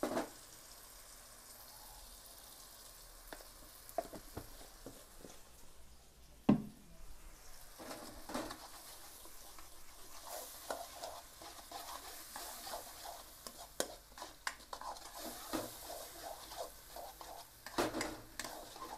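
Spatula stirring and scraping sliced shallots and vegetables around a wok over a steady sizzle of frying sauce. A single sharp knock about six and a half seconds in is the loudest sound, and the stirring strokes come faster and closer together from about ten seconds in.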